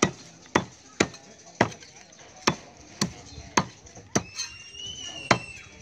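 Knife chopping food on a cutting board: single sharp chops at a steady pace of about two a second, with a short pause about four seconds in. A high, thin whistle with a slight rise sounds over the last chops.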